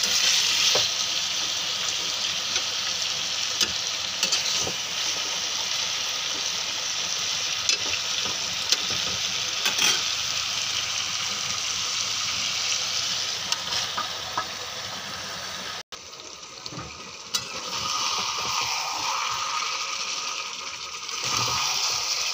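Chicken and potato curry masala sizzling in a frying pan while a spatula stirs and scrapes it, with scattered clicks of the spatula against the pan. The sound cuts out briefly about two-thirds through, comes back quieter, and grows louder again near the end.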